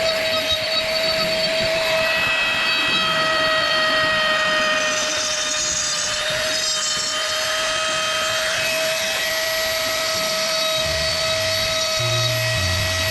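Power tool running steadily with a high, constant whine while working wood, the higher pitches shifting as it cuts.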